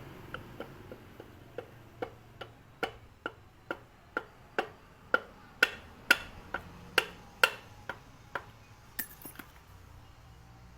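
A run of sharp clicks, about two a second, growing louder toward the middle and fading near the end.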